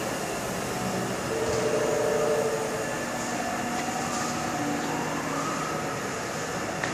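A 1995 Haas VF6 vertical machining center cycling through a program: a steady mechanical hum with motor whines that rise and fall, loudest about two seconds in, and a short click near the end.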